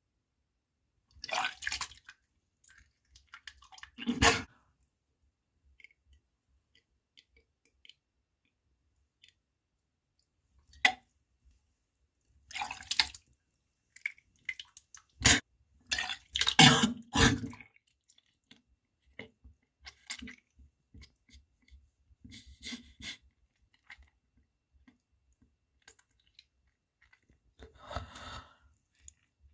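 A person retching and gagging while making themselves vomit with their fingers, with wet splashing and dripping into water. The sounds come in about a dozen short bursts with quiet gaps between them, loudest about halfway through.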